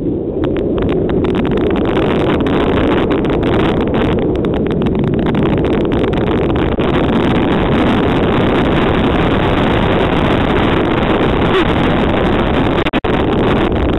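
Loud rushing wind on the microphone of a toboggan speeding down a packed-snow piste, mixed with the sled's runners scraping and jolting over the snow in many short knocks. The noise dips out suddenly for an instant near the end.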